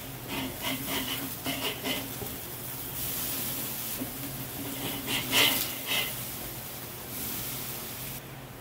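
Metal grill spatula scraping and clinking on the cooking grate of a Weber charcoal kettle grill as meats are flipped, in two bouts, the first near the start and the second about five seconds in. Meat sizzles steadily between them.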